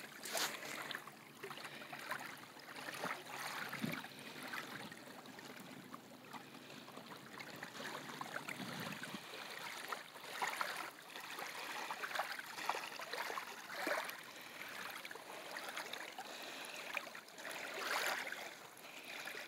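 Shallow water lapping and washing over a sandy shoreline in small waves, rising in irregular surges every few seconds.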